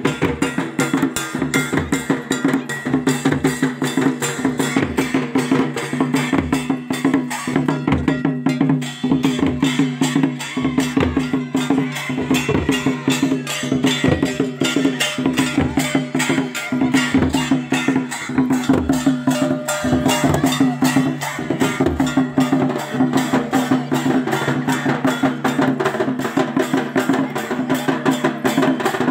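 Live drumming on large stick-beaten drums, a fast, steady beat kept up throughout, over a steady low drone.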